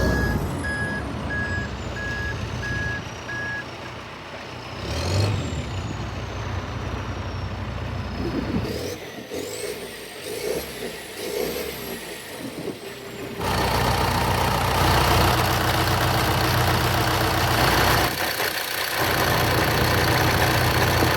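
Backhoe loader's diesel engine running, with its reversing alarm beeping steadily for the first few seconds. A whine rises and falls in pitch several times, then about 13 seconds in the sound turns into a louder, steady rush.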